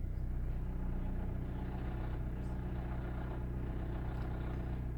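A 2014 Honda Accord's engine idling steadily while the car is stopped, heard from inside the cabin.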